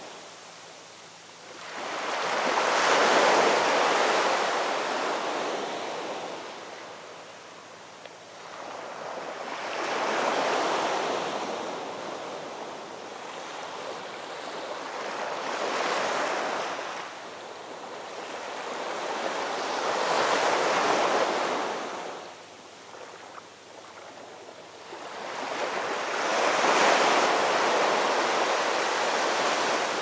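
Heavy sea surf breaking over rocks and concrete tetrapods: five rising and falling surges of rushing, hissing water, each a few seconds long, the loudest near the start and near the end.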